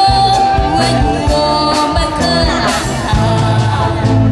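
Female vocal duo singing a Chinese song through a PA over a live band with drum kit, bass and keyboard, with a long note held at the start and a steady drum beat underneath.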